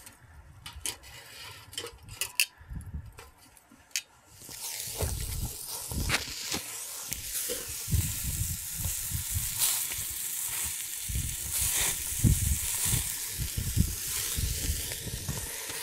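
Bratwurst searing on the hot grate of a small charcoal kettle grill: a steady sizzling hiss with crackles starts about four seconds in. Before that there are a few sharp clicks of metal tongs against the grate, and low rumbles come and go throughout.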